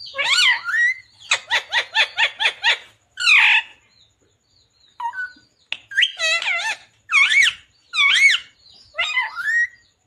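Male rose-ringed parakeet calling: loud, wavering calls, with a quick run of about eight short chirps a second or so in, then more calls after a brief pause near the middle.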